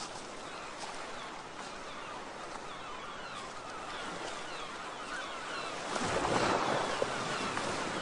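Sea waves washing onto a shore in a steady rush of surf, with one wave swelling louder about six seconds in.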